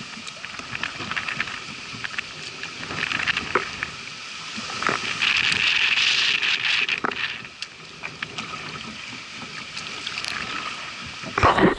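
Kayak paddle strokes dipping and splashing in floodwater, with drips and water lapping against the hull, and a louder knock near the end.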